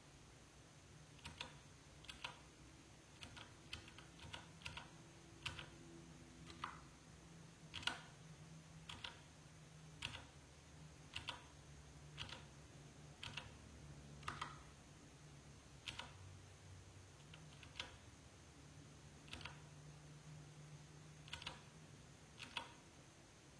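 Key presses on a Digital Alliance Meca Air mechanical keyboard fitted with stock Outemu bronze switches: single keystrokes at uneven spacing, about one or two a second.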